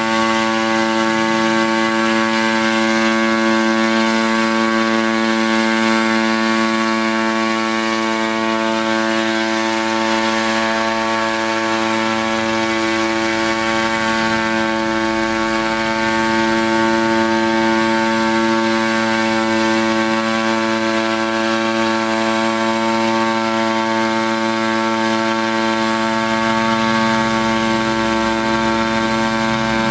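Gas-engine hybrid pentacopter in flight: its petrol engine and rotors make a loud, steady drone that holds one pitch throughout.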